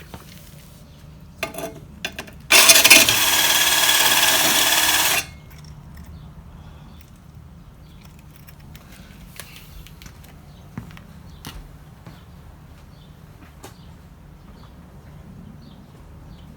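Power drill spinning a drill-mounted sharpening stone against a lawn mower blade: one loud grinding burst of under three seconds over a steady motor whine, starting and stopping abruptly, with light clicks and knocks of handling before and after.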